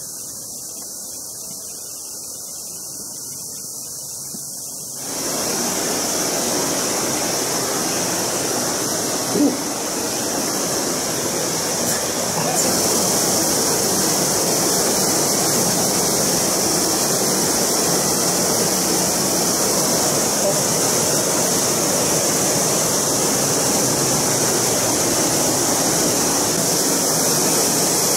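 Underground waterfall and stream in a limestone cave, a loud, even rush of falling water. It sets in about five seconds in, after a quieter stretch of low steady noise.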